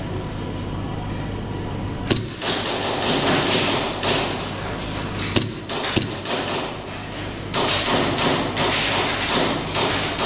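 Three sharp knocks or cracks, about two seconds, five and a half seconds and six seconds in, over a rustling noise that swells and fades twice.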